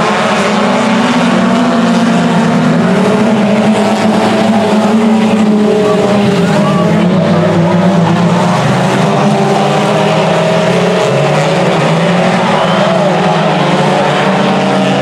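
Several four-cylinder dirt-track race cars running together, their overlapping engine notes rising and falling in pitch without a break.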